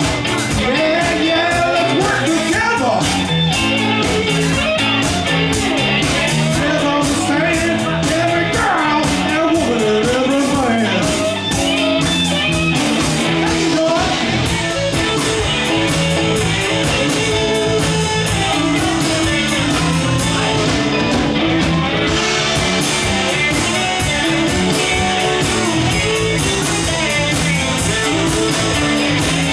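Live rock band playing: electric guitars, electric bass and a drum kit keeping a steady beat.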